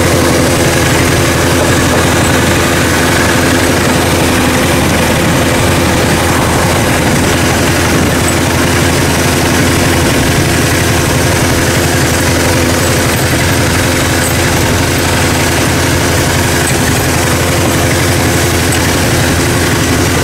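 Small fishing boat's engine running steadily, an even, unchanging hum.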